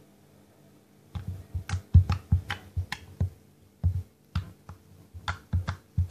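Clear slime with lipstick worked into it, being squeezed and pressed against a countertop by hand, making a quick run of wet clicks and pops, about three a second, starting about a second in.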